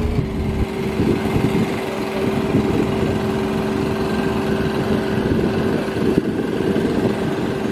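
Steady machine drone: a constant low hum with overtones over an uneven low rumble.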